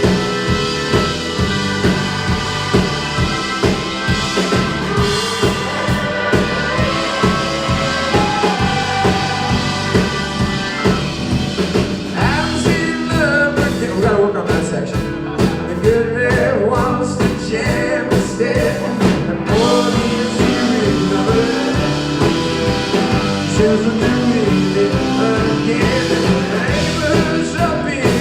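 Rock band playing a song live without lyrics: drum kit, bass and electric guitars keeping a steady beat, with a wavering lead line coming in about halfway through.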